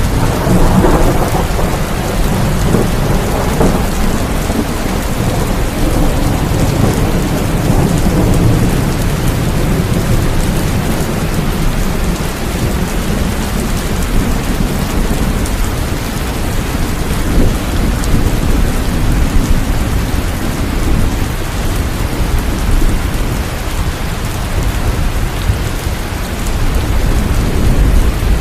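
Steady heavy rain with rolling thunder rumbling low beneath it, strongest in the first few seconds and swelling again near the end.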